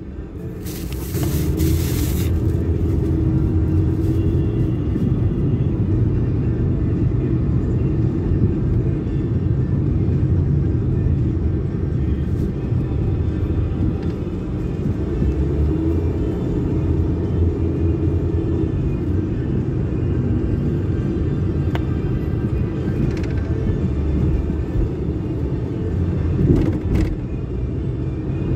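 Steady low rumble of a car on the move, with music playing along with it.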